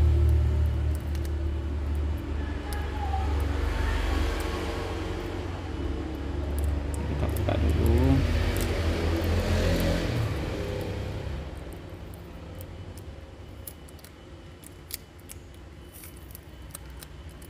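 A low rumble, like a passing vehicle, that fades out about twelve seconds in, over small crinkles and clicks of tape and foil being peeled off the edge of a phone battery.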